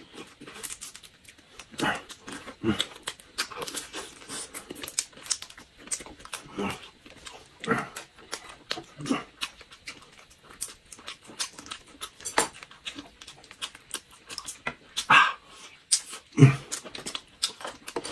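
Close-up chewing and lip-smacking of people eating grilled shrimp and meat skewers: irregular wet mouth noises and small clicks throughout, with a couple of louder smacks near the end.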